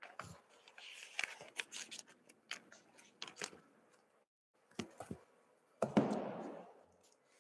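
Handling noise at the microphone: a run of sharp clicks and taps, then a brief rustle about six seconds in, like papers being handled.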